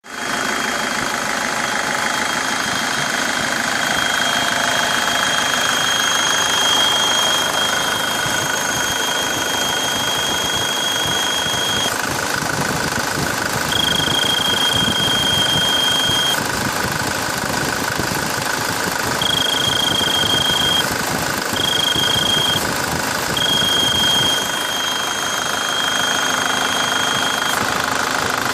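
Engine running steadily with a high-pitched turbocharger whistle, a thin steady tone that cuts out and comes back several times.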